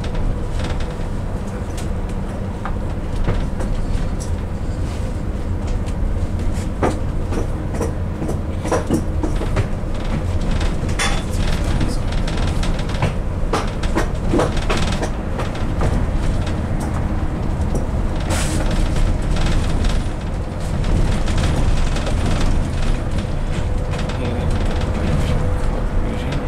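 The cabin of a moving bus: a steady low rumble of engine and road, with frequent short rattles and clicks from the bodywork and fittings.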